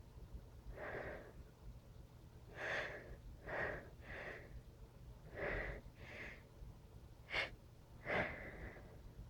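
A person sneezing over and over: about eight short, breathy bursts, some of them gasping in-breaths and some sneezes, with a sharp, short one about seven seconds in and the loudest just after.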